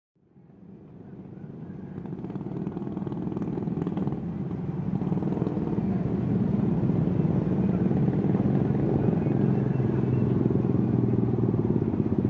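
Road traffic of motorcycles and cars crossing the railway tracks, running over a steady low engine hum. The sound fades in over the first few seconds.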